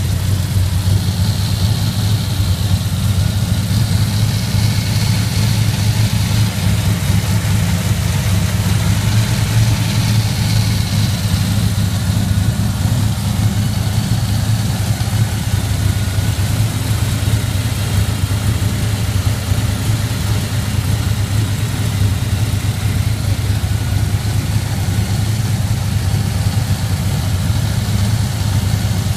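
Rat rod truck's engine idling steadily.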